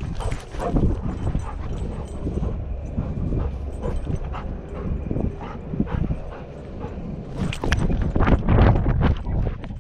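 Body-mounted action camera on a running golden retriever: irregular thuds and knocks from the dog's strides jolting the harness mount, with fur rubbing against the microphone and the dog's breathing mixed in. The knocks come thickest and loudest near the end.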